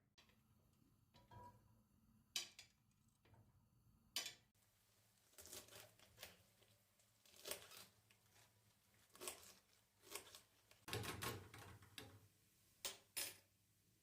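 Quiet room with scattered light taps and clicks, about eight in all, a louder cluster of knocks about eleven seconds in.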